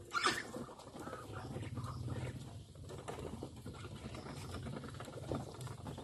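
Muscovy ducks and chickens feeding from a concrete grain trough: a dense, continuous patter of small clicks as bills peck and dabble in the grain, with one louder brief sound just after the start.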